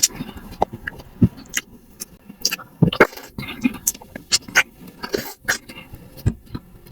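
A person chewing and eating, with irregular mouth clicks and smacks several times a second.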